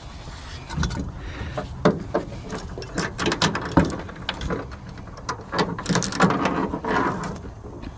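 Metal trampoline frame pieces being handled and set down: a run of irregular knocks and clanks, some with a short ring, busiest in the middle of the stretch.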